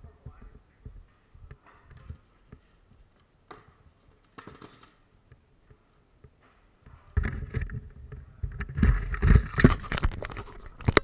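Faint scattered knocks, then from about seven seconds in loud rustling and scraping close to the microphone as the camera is handled and moved, ending with a sharp click.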